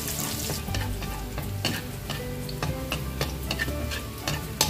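Minced garlic sizzling as it sautés in hot oil in a metal wok, stirred with a metal ladle that scrapes and taps against the pan in sharp clicks; the loudest tap comes near the end.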